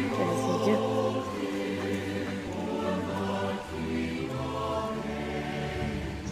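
Background music: a choir singing held chords over a sustained bass, the chords changing every second or so.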